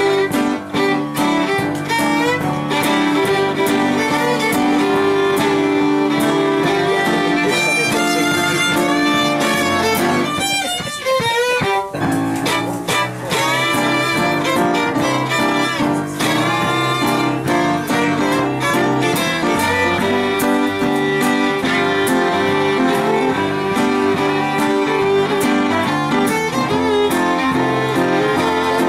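A fiddle plays a lively swing tune with acoustic guitar and piano accompanying.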